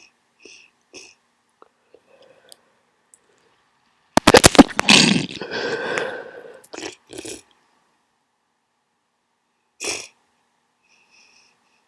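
A person with a heavy cold sniffling through a blocked nose, a few short sniffs, then one loud, wet burst from the nose about four seconds in that trails off over about two seconds, followed by more sniffs.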